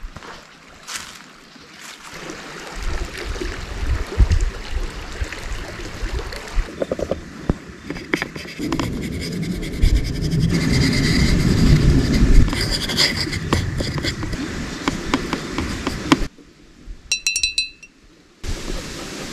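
Paintbrush working paint on the palette and onto a hand-held painting panel, with sharp clicks and ringing clinks as the brush knocks the plastic palette box. Under it is a rumbling rush of wind on the microphone, loudest in the middle, which drops away briefly near the end and then returns.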